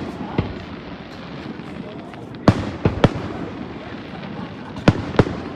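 Fireworks going off: about six sharp bangs, a small one about half a second in, a quick group of three around the middle and two near the end, over a steady background noise.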